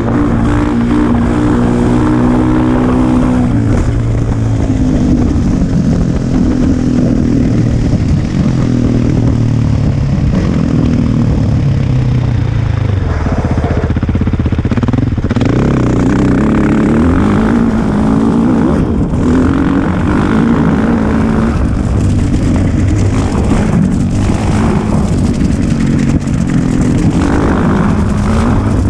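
Husqvarna 701's single-cylinder four-stroke engine running under way, its note rising and falling with throttle and gear changes. It drops to low revs about halfway through, then picks up again.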